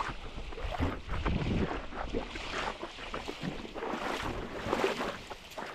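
Wind buffeting the microphone in a steady low rumble, with irregular sloshing and splashing of lake water.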